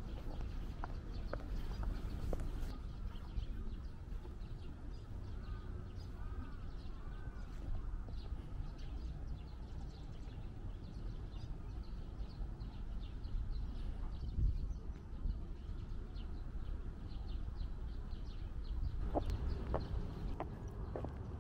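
Birds calling in outdoor ambience: a few short calls that rise and fall, repeated several times, plus scattered high chirps over a steady low rumble.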